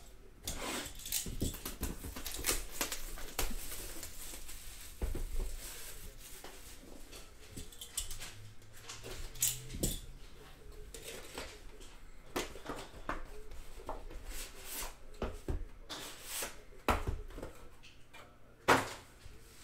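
Plastic shrink wrap crinkling and tearing as a sealed trading-card box is unwrapped and opened, with irregular handling rustles and small clicks of cardboard throughout. One sharp knock near the end.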